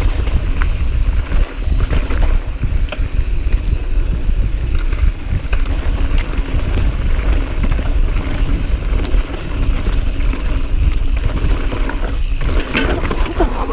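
Mountain bike running fast down a loose dirt trail: a constant low rumble of wind buffeting the on-bike camera's microphone, over tyres crunching on dirt and the bike rattling over bumps.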